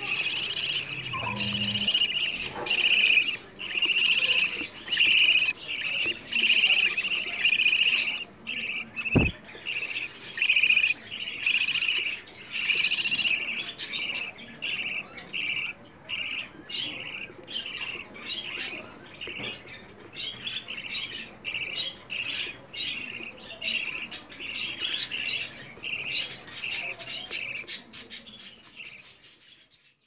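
Budgerigar chicks in the nest box repeating short, rasping begging calls, about one to two a second, asking to be fed. There is a single knock about nine seconds in, and the calls fade out at the end.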